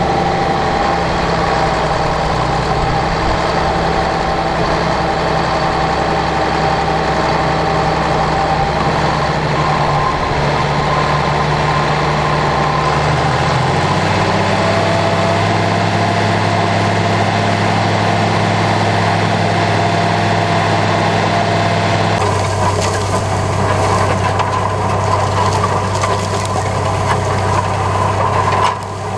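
Ford TW15 tractor's six-cylinder diesel engine running steadily under load while pulling a field cultivator; its note shifts about halfway through. After a cut, the engine is heard from the cultivator behind it together with the rushing, scraping noise of the shanks tearing through the soil.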